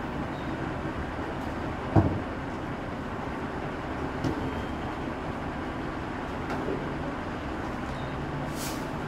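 Rear-loader garbage compactor truck's diesel engine idling steadily as rubbish is loaded by hand into the hopper. There is a loud knock about two seconds in and a lighter one a couple of seconds later, and a short hiss near the end.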